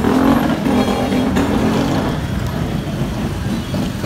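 Street traffic noise, with a vehicle engine running close by and a couple of short clicks.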